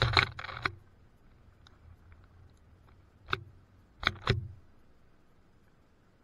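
Sharp taps and knocks of a northern cardinal feeding on a wooden feeder tray: a quick cluster of several at the start, one about three seconds in, then two close together a second later.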